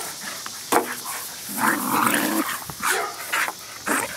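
Brittany dog barking in play: several short barks, with one longer drawn-out call about a second and a half in.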